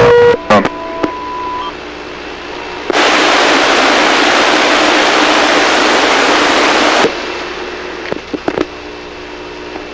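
CB radio receiver: a transmission drops off with key-up clicks, leaving a low hiss with faint whistling tones. About three seconds in comes a burst of loud rushing static lasting about four seconds, which cuts off abruptly. A few clicks follow near the end. It is a station keying up with no audio behind it, which the operator puts down to somebody having trouble with their audio.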